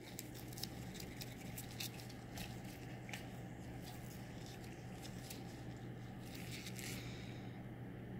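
Faint clicks and light handling noises as gloved hands put down a pigment bottle and tools, scattered over several seconds and stopping a second or so before the end, over a steady low hum.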